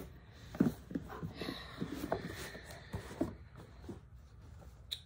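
Orange Louis Vuitton cardboard shoe box being opened and handled: a string of light knocks and taps, the loudest about half a second in, with soft rustling in between.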